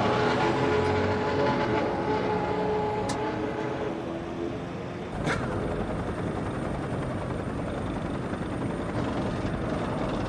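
Formula One car's V10 engine heard moving away, its pitch lines fading over the first four seconds or so. About five seconds in, the sound cuts abruptly to a steady, unpitched rumbling noise.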